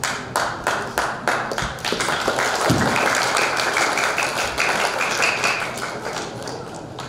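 Rhythmic hand claps, about three a second, giving way after about two seconds to a dense spell of applause that thins out near the end.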